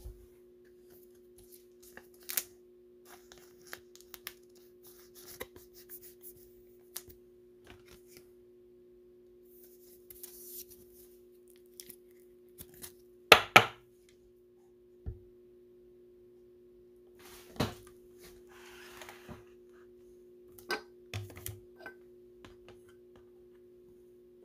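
Trading cards being put away in plastic sleeves and hard top loaders: scattered light clicks, taps and plastic rustles, with two sharp clicks in quick succession about halfway through. A steady low hum runs underneath.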